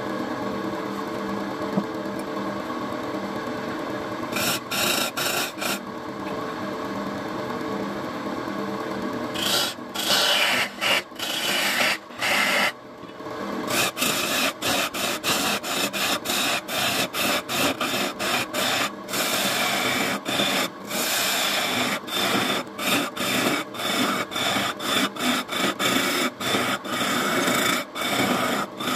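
Wood lathe running with a hand turning tool scraping and cutting into the spinning wooden blank, under a steady motor hum. The cutting is continuous at first, then from about a third of the way in breaks into many short strokes as the tool is pressed in and eased off again.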